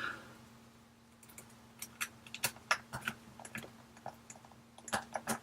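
Light, irregular clicks and taps of small metal parts and tools being handled on an opened iPhone 8, as its internal shield plates go back on. They start about a second in and come a few times a second.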